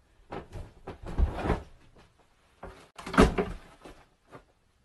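Knocks and thumps in a small room, door-like bangs in two clusters: one about a second in and a louder one a little after three seconds in.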